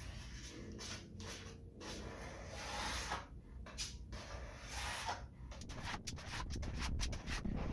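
A small hand spreader scraping and rubbing adhesive across the back of a laminate sheet, in repeated strokes that become shorter and quicker toward the end.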